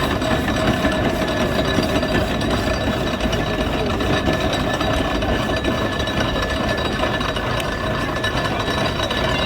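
Steam engine running with a steady, rapid mechanical clatter.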